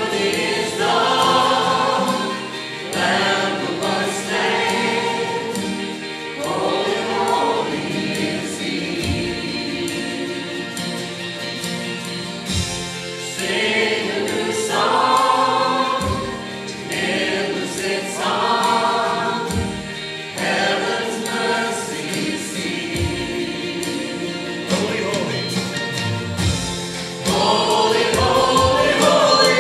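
Live worship band playing a praise song: singers at microphones over electric and acoustic guitars, keyboard and drums, the sung lines coming in phrases of a few seconds with short breaks.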